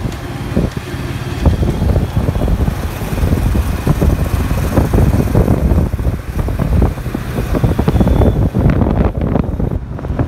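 Wind buffeting the microphone of a moving two-wheeler, a loud gusty low rumble, with the vehicle and surrounding road traffic running underneath.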